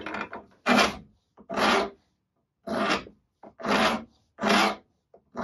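Flat hand file rasping across a Stuart 10V steam engine cylinder casting clamped in a bench vise, cleaning up the rough cast surface. About six even push strokes, roughly one a second, with short gaps between them.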